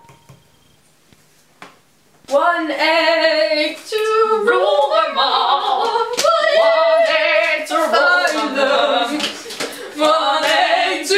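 Female voices singing a tune without accompaniment, starting about two seconds in and continuing loudly; a couple of faint taps come before it.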